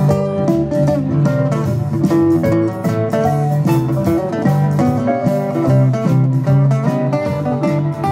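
Live band playing a folk-blues tune: a strummed acoustic guitar with electric bass and other instruments over a steady beat.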